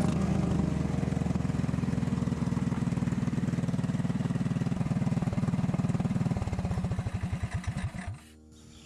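A small single-cylinder go-kart engine running at a steady speed. About six seconds in its firing slows, the beats spread further and further apart, and the engine stops shortly before the end.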